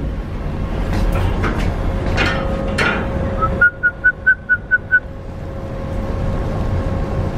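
Ferry deck ambience: a steady low rumble of wind and ship's engine with a faint hum, a few clicks early on, and about a second and a half in the middle a quick run of about eight short, same-pitched high beeps, roughly four a second.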